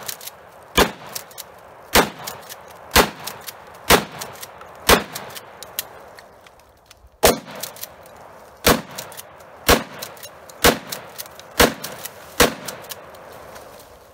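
Shotgun fired repeatedly into a birch trunk at close range: about eleven loud blasts roughly a second apart, with a pause of about two seconds after the first five.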